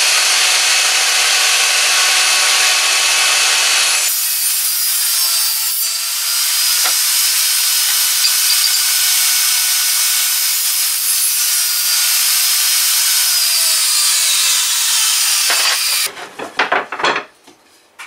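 Benchtop table saw running and cutting wooden dowels, a loud steady whine whose tone shifts about four seconds in. It stops suddenly near the end, followed by a few quick knocks.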